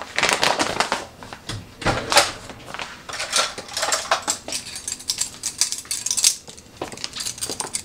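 Irregular clattering and clinking of plastic measuring spoons against a stainless steel mixing bowl and other kitchen utensils: a string of quick, uneven knocks.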